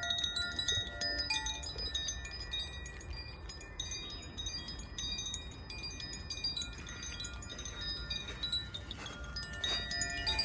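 Zaphir chime ringing: a hand-held tuned chime, its rods struck over and over to give a shower of high, overlapping tinkling notes with a few longer-held lower tones. A low rumble runs underneath.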